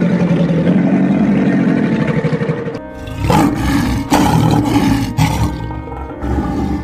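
A crocodile's low, pulsing growl that stops abruptly about three seconds in. It is followed by a lion growling and roaring in four short, rough bursts.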